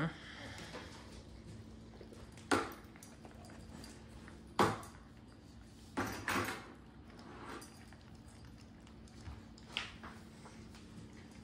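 A handful of short, sharp knocks and bumps a second or two apart, two of them close together midway, as puppies are handled and set down in a plastic kiddie pool, over a steady low hum.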